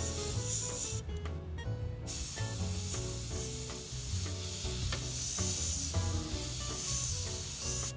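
Harder & Steenbeck Infinity airbrush spraying acrylic paint in a steady hiss of air, which stops for about a second near the start when the trigger is let off and then runs on. Background music plays underneath.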